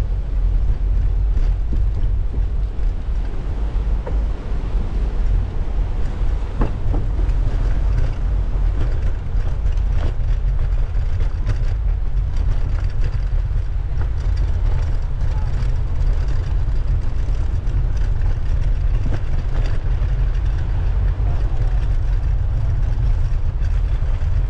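Steady low rumble of wind buffeting the microphone while cycling, with voices murmuring faintly underneath.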